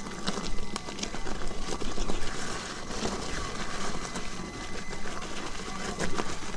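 Electric unicycle rolling over a loose gravel road: the tyre crunching on stones with many small clicks and knocks, over a steady faint high whine.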